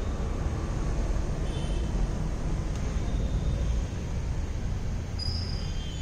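Steady low background rumble with no speech.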